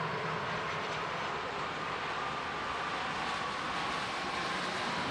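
Airbus A330-200 jet airliner on final approach, its engines making a steady roar with a faint high whine.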